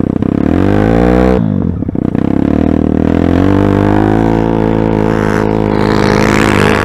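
Pit bike engine accelerating under load: the revs climb, drop abruptly about a second and a half in at a gear change, then climb steadily again for several seconds.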